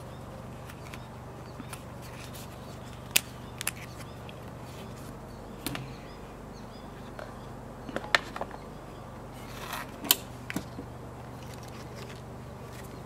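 Handling noise from an unboxing: a few sharp clicks and taps, some in quick pairs, as the cardboard box, its paper insert and the metal SIM eject tool are handled, with a brief rustle of card near the end.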